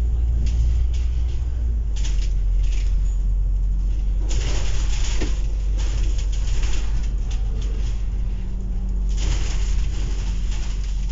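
Double-decker bus running along a hilly road, heard from the upper deck: a steady low engine and road rumble, with two louder stretches of hiss about four and nine seconds in.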